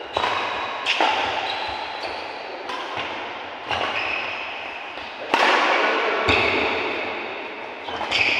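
Badminton rally: rackets strike a shuttlecock about every one to two seconds, each sharp hit echoing in a large hall.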